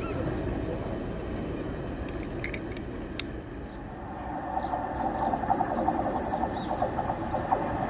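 Diesel locomotive running under power, a low rumble that grows louder from about halfway through as British Rail Class 50 locomotive 50008, with its English Electric 16-cylinder engine, approaches hauling a passenger train, its engine note pulsing.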